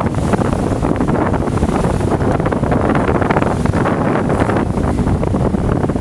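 Steady wind buffeting the microphone on a boat moving through choppy water, with the rush of water and waves around the hull.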